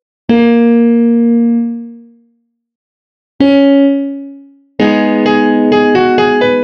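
Software piano in FL Studio (the 'Plain Piano' preset): a single note sounds about a quarter of a second in and fades away over two seconds, then another single note a little after three seconds, each auditioned as it is drawn into the piano roll. From about five seconds in, the pattern plays back: a melody over held chords in a steady rhythm.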